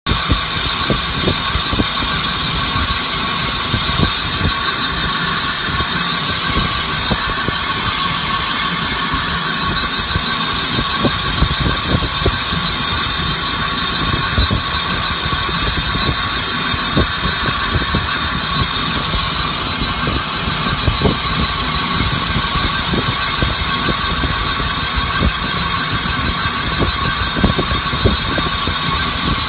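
Metal-cutting machine tool cutting cast iron, running steadily with a high whine and a rapid, irregular crackle.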